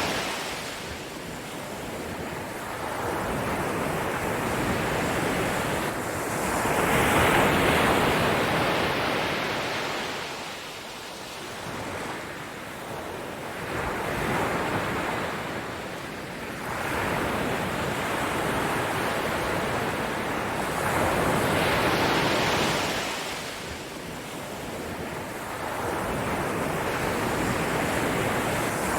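Ocean waves washing ashore as an even rushing noise, each swell building and fading over about seven seconds, four times over.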